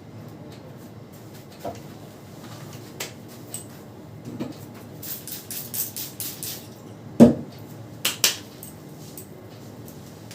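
Hands slapping and tapping during a head massage. A few scattered taps are followed by a quick run of sharp taps, about five a second. Then comes a louder dull thud and two sharp smacks in quick succession.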